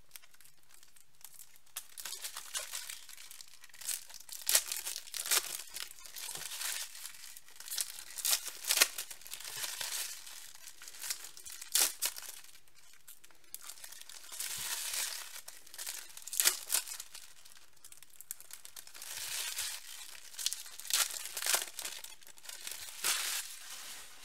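Foil trading-card pack wrappers crinkling and tearing as packs are opened by hand, in irregular crackles with a few sharper rips.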